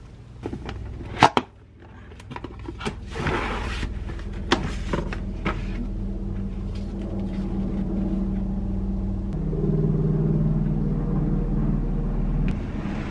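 Several sharp clinks and knocks of kitchen things being handled on a counter, the loudest about a second in. Then a steady low hum of a running kitchen appliance, which gets louder about ten seconds in and cuts off suddenly near the end.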